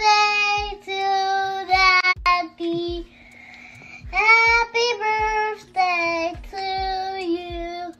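A young girl singing, holding long steady notes, with a short pause about three seconds in. A faint steady hum and a soft low thud about twice a second run underneath.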